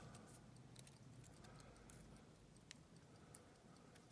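Near silence with a few faint, scattered clicks of a lock pick and tension wrench working the wafers of a wafer padlock.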